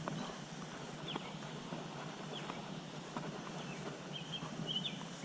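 Outdoor creekside ambience: a bird chirps a few short, quick notes near the end, with fainter chirps earlier, over a steady low background rumble and scattered faint clicks.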